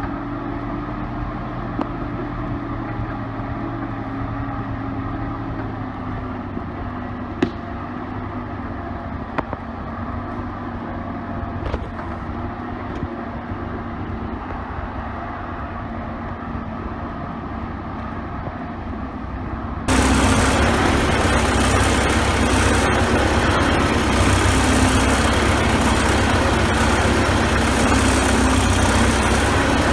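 Four-cylinder diesel engine of a 1960s Case 580B backhoe running steadily at low speed, with a few sharp knocks early on. About two-thirds of the way through the sound abruptly becomes louder and harsher, and the engine keeps running steadily.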